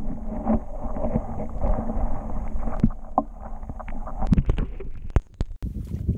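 Muffled water sloshing and bubbling around a camera held just under the water's surface, with scattered small knocks. Near the end it cuts abruptly to a brighter, open-air sound.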